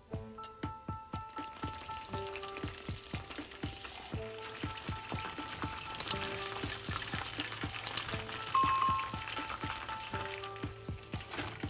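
Battered chicken pieces sizzling and bubbling in hot oil during the second fry of double-frying, with a spatula knocking against the pan a couple of times past the middle. Background music plays over it.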